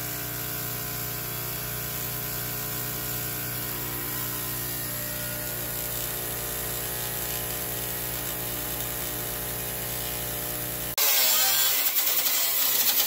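Electric welder arc welding with a steady hum and an even crackle. About eleven seconds in it cuts to a louder steady hiss.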